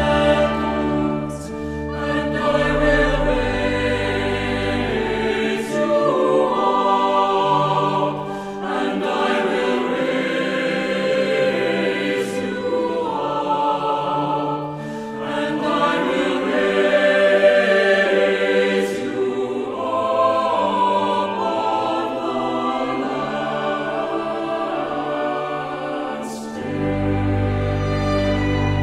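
Choir singing a slow hymn in sustained, held notes, with a deep low accompaniment under the first few seconds and again near the end.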